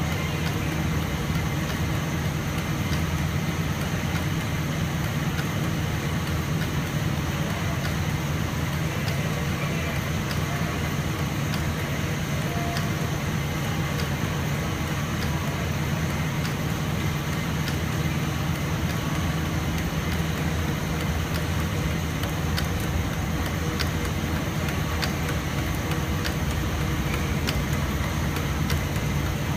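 Rotogravure printing machine running steadily as film is fed through its rollers: a continuous low machine hum with hiss over it, and a few faint ticks now and then.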